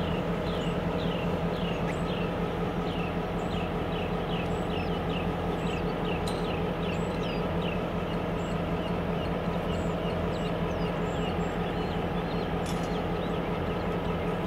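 Norfolk Southern diesel locomotive idling at a standstill, a steady low hum. Over it runs a fast series of short, high chirps, several a second, that thins out about two-thirds of the way through.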